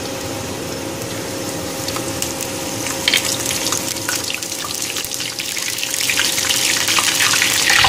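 Curry leaves sizzling and crackling in hot oil in a small pan as a tempering, the sizzle growing louder toward the end. A faint steady hum runs underneath.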